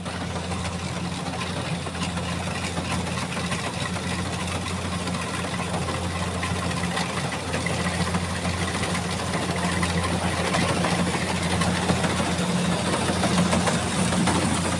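An engine running steadily at a constant speed: a low, even hum with a noisy layer above it.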